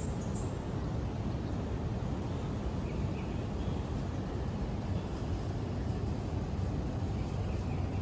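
Steady low outdoor rumble of background noise, even in level throughout, with a few faint high chirps now and then.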